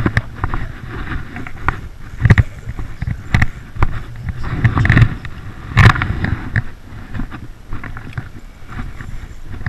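Rustling and rubbing of a rain jacket against a chest-mounted camera as the angler moves with the rod, with a low rumble and irregular knocks and clicks. The loudest thumps come about two, five and six seconds in.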